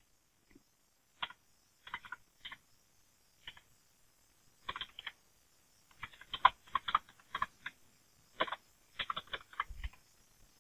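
Computer keyboard keys being typed in short, irregular bursts of clicks, as shell commands are entered at a terminal.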